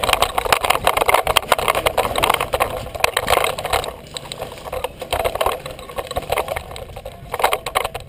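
Airsoft electric guns firing rapid full-auto bursts: a dense rattle of shots for the first four seconds or so, then shorter bursts.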